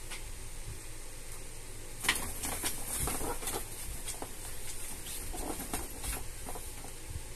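Two cats play-fighting: a run of quick scuffling, scrabbling and rustling that starts about two seconds in, over a steady background hiss.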